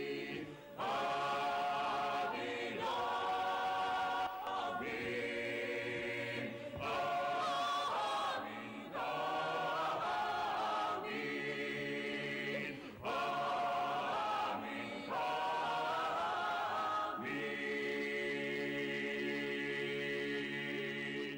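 A choir chanting in phrases of about two seconds, each with a short breath-break between; the last phrase is held for about four seconds and then fades out.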